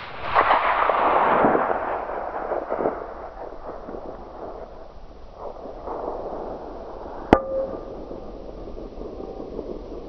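.260 Remington rifle shots: the rumble of a shot rolling away over the first couple of seconds, then another sharp report about seven seconds in, with a short ringing tone after it.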